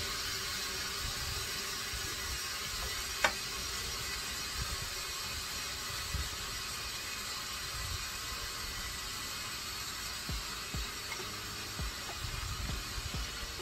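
A person eating at a table: soft low thumps of chewing and handling over a steady hiss, with one sharp click about three seconds in.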